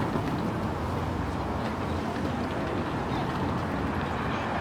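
Light city street ambience: a steady hum of passing traffic with indistinct voices of people walking by.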